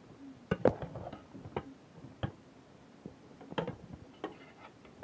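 Metal spoon clinking and knocking against the side of a steel pot while stirring steamed callaloo: a string of sharp, irregular clicks, about eight of them.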